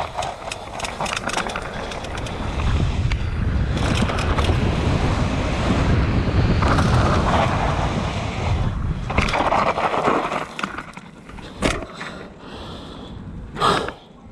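Downhill mountain bike descending a rough dirt track: tyre rumble, wind on the microphone and a rattle of sharp clicks and knocks from the bike, busiest through the middle and easing in the last few seconds to a few separate knocks. The sharp cracking knocks are put down to a faulty damper in the RockShox Zeb fork.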